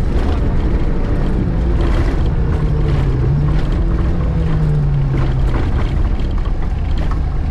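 VAZ 2105 rally car's four-cylinder engine running hard at speed on a gravel stage, heard from inside the cabin. Its note rises through the middle and eases off near the end, with gravel rattling and stones hitting the underside throughout.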